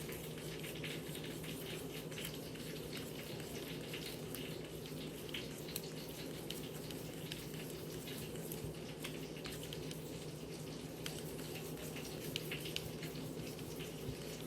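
Spoon stirring a thick sauce in a bowl: many small, irregular clicks and wet ticks over a steady low hum.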